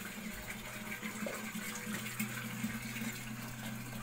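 Water running steadily from a tap or hose and splashing onto a wet brick washing platform, with a steady low hum underneath.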